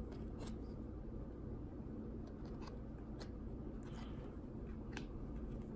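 Faint handling of trading cards: a few soft clicks and slides as cards are moved through the hand, over a low steady room hum.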